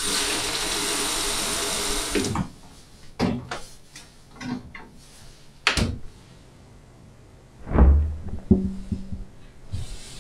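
Kitchen tap running water into a plastic bottle for about two seconds, then shut off. Scattered knocks follow, and a heavy low thump about eight seconds in.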